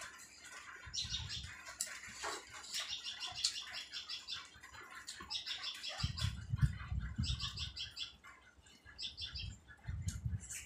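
Close-miked chewing and lip-smacking of a person eating naan dipped in dal by hand, in quick runs of small wet clicks. Dull low thumps come twice, about six and nine seconds in.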